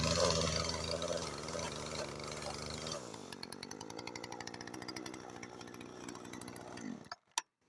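Angle grinder motor running, grinding into a wooden mug blank, with the load easing about three seconds in; it keeps spinning more quietly, then stops sharply near the end.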